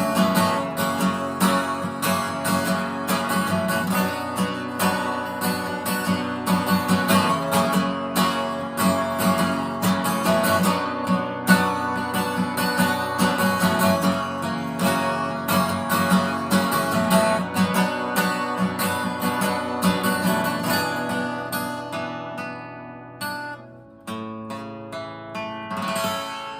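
Acoustic guitar strummed in a steady rhythm as an instrumental passage; the strumming eases off and gets quieter a little after three quarters of the way through, then starts again.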